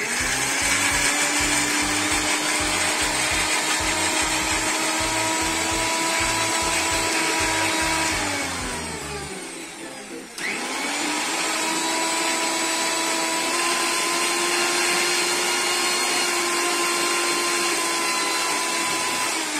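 Electric mixer grinder running with a small steel jar, grinding a thick paste of mint, green chillies and ginger in lemon juice. The motor spins up and runs for about eight seconds, then winds down. It is switched on again about ten seconds in and runs until it winds down near the end.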